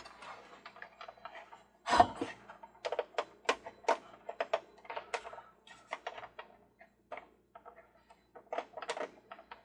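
Handheld screwdriver and a small screw clicking and knocking against the toy's base while the last screw into a foot is found and driven in: a dense run of irregular small clicks, with one louder knock about two seconds in.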